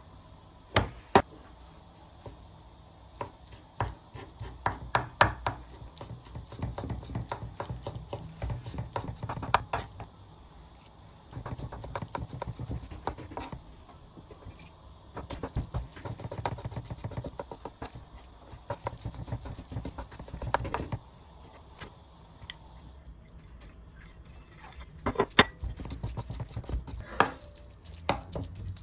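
Kitchen knife chopping and mincing raw salmon on a wooden cutting board: bursts of rapid knife taps on the wood, with short pauses between them.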